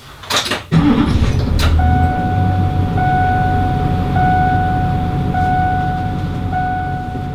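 School bus's GMC 6.6 L diesel engine starting under a second in, then running with a steady low rumble. From about two seconds in, a pitched electronic warning tone sounds almost continuously, breaking briefly about once a second.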